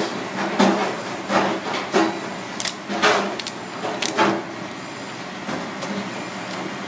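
Kitchen scissors snipping through the shell of a raw lobster tail: a series of short crunchy cuts every half second to a second, thinning out in the last couple of seconds.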